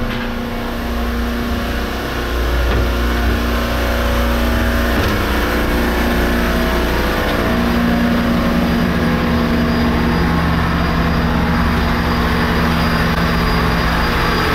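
Steady, loud drone of a ship's engine-room machinery, with a deep hum and several steady tones. It grows a little louder about two seconds in.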